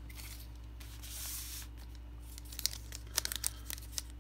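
Donruss Optic foil trading-card pack wrapper crinkling as it is picked up and handled: a soft rustle about a second in, then a run of sharp crackles.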